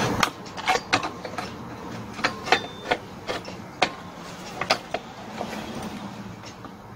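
Irregular clicks and knocks of plastic and metal parts as a brush cutter's engine housing and fittings are handled by gloved hands, about a dozen sharp taps over several seconds.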